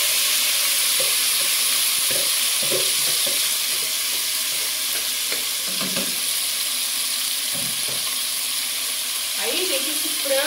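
Diced chicken breast frying in very hot oil in an aluminium pot: a steady, loud sizzle, with a few knocks and scrapes as the bowl is tipped against the pot and a wooden spoon stirs near the end.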